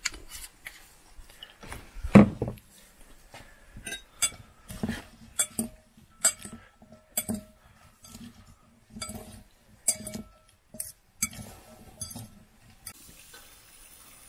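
Tableware being handled: a series of separate clinks and knocks, each with a short ring, the heaviest knock about two seconds in.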